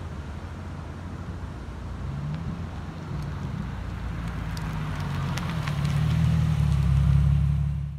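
2008 Infiniti G37 Coupe's 3.7-litre V6 through a Manzo axle-back exhaust and Z1 high-flow catalytic converters, a low exhaust note growing steadily louder as the car approaches and drives past close by.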